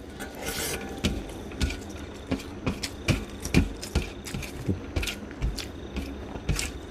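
Close-miked chewing and mouth smacking while eating rice with fried egg: a run of short wet smacks and clicks, about two a second, unevenly spaced.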